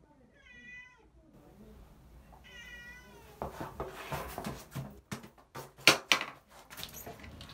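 A mackerel tabby house cat meowing twice, two short calls about two seconds apart. A run of sharp knocks and rattles follows, the loudest a single knock about six seconds in.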